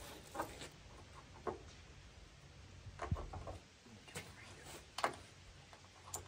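A ratchet strap's webbing and metal hooks being handled and threaded around a transmission: a handful of faint, scattered clinks and rustles.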